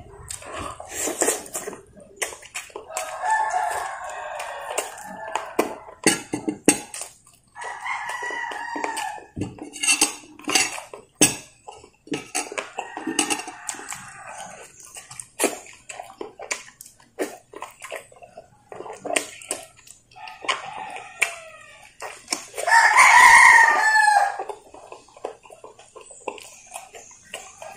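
Roosters crowing several times, one crow loudest near the end, over chewing and lip-smacking mouth sounds.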